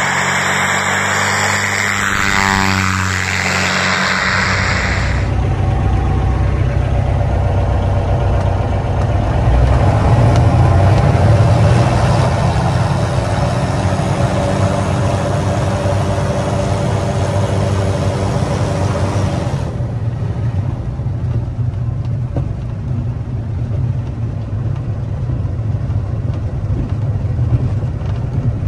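Tarragon light aircraft's UL Power engine turning a DUC Cobra constant-speed propeller at high RPM during a ground test run, a steady engine-and-propeller drone. It is heard from the runway side for the first few seconds, then inside the cockpit, and the sound thins out about twenty seconds in.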